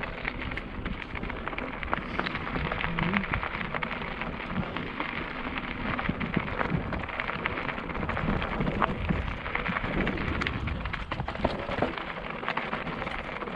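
Mountain bike rolling over a rocky dirt trail: tyres crunching over gravel and rock, with many small clicks and rattles from the bike as it jolts over the stones.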